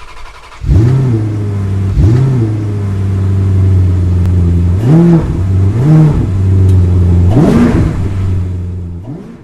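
Car engine idling, blipped five times: each quick rev rises and falls straight back to idle. It fades out near the end.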